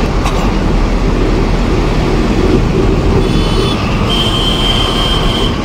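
A Tata goods truck's engine and road noise running steadily at highway speed, heard from inside the cab. About four seconds in, a thin, steady high tone comes in over the rumble and holds.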